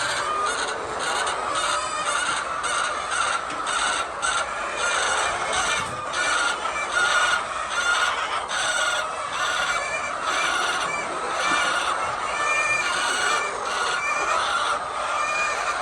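A large flock of chickens clucking and calling without pause, many birds at once, their short calls overlapping into a continuous din.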